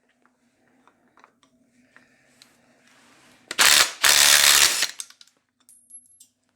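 Socket tools clicking and rattling against the engine, then two short loud bursts of a power tool working on a tight, seized bolt of the engine's front case cover, the second burst longer than the first.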